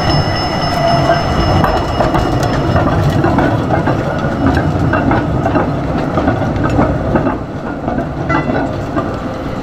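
Articulated tram passing close by on a curve. Its wheels squeal high and steady for the first few seconds, then clack repeatedly over rail joints and points over the low rumble of the car.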